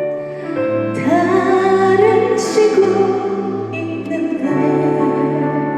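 A woman singing a slow song live over a backing track. She holds a long note with vibrato from about a second in, and it fades under the accompaniment after about four and a half seconds.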